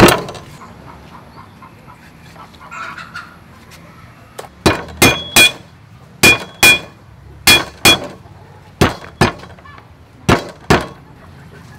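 Steel cleaver chopping on a thick wooden chopping block: one hard chop at the start, then about a dozen sharp chops from about five seconds in, mostly in quick pairs, some with a brief metallic ring from the blade as it cuts galangal into slices.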